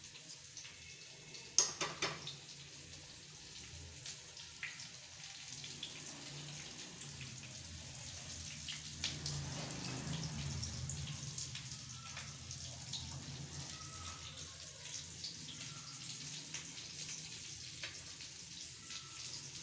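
Hot oil sizzling with scattered crackles as battered potato balls deep-fry, over a low steady hum. There are two sharper pops about two seconds in.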